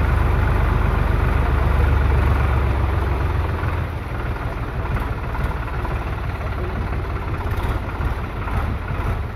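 Small tractor's engine running steadily as it drives slowly through floodwater, with a deep low rumble that eases a little about three and a half seconds in.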